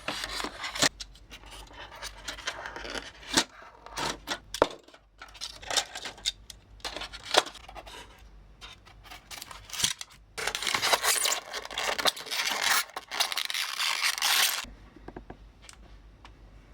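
Clicks, light knocks and scraping of small hard parts being handled, followed by about four seconds of continuous scraping or rubbing that stops suddenly.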